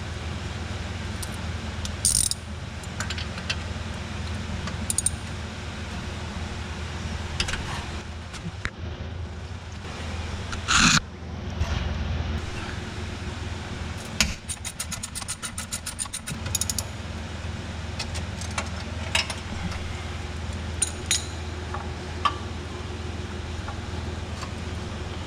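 Ratchet wrench clicking while working bolts loose, with a quick run of clicks about halfway through, and scattered metal knocks and clanks of tools, one loud knock a little before that. A steady low hum runs underneath.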